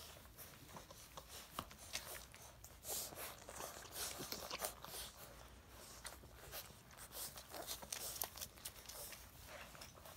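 Six-week-old livestock guardian dog puppies moving about, making an irregular run of soft scratches, clicks and rustles.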